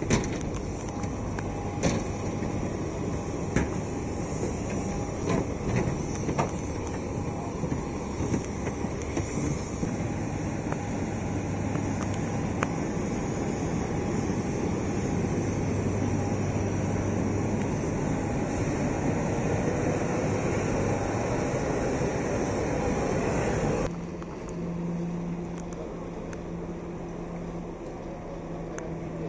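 Steady running noise of a vehicle, with scattered clicks and knocks. About 24 seconds in it cuts to a quieter steady hum.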